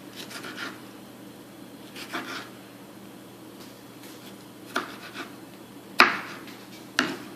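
Serrated knife sawing through a tomato on a cutting board: a few short sawing strokes, then three sharp knocks in the second half, the loudest about six seconds in.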